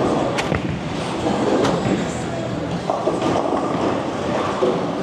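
Bowling ball set down on the wooden lane with a knock as it is released, then rolling away with a steady rumble, over the busy background of the alley.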